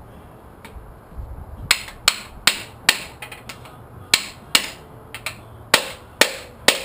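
A hammer striking repeatedly to drive a piston out of a cylinder bore in a 1971 Pontiac 455 V8 block. About a dozen sharp blows with a short ring start about a second and a half in and come two to three a second, with a brief pause near the middle.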